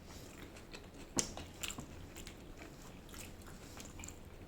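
A person chewing and biting food, with scattered short clicks of the mouth and food; the sharpest comes about a second in.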